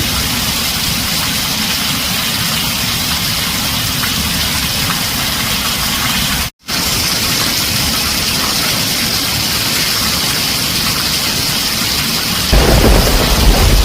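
Heavy rain on a tin roof, a steady dense hiss. It cuts out for a split second about halfway through, and near the end a low rumble of thunder comes in.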